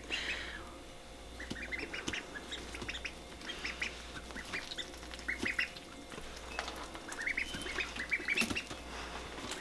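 Ducklings peeping: short, high calls in quick runs of three to six, coming again and again.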